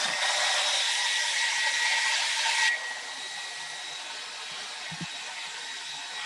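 Hand-held hair dryer blowing on a fresh coat of chalk paint: a steady rush of air with a thin whine in it. About two and a half seconds in it becomes noticeably quieter and carries on at that lower level.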